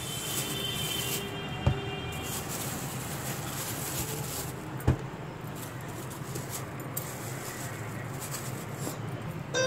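Clear plastic bag rustling and crinkling as hands pick green chillies out of it, over a steady low hum, with two sharp knocks, one under two seconds in and one about five seconds in.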